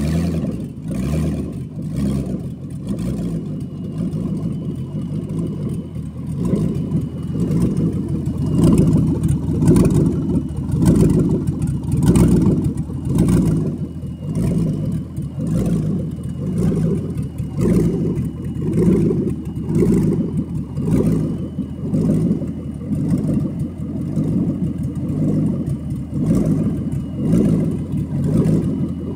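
A 2007 Corvette's 6.0 L LS2 V8, out of the car and run on a test stand, idling steadily, its sound swelling and easing about once a second, with a faint high whine in the background.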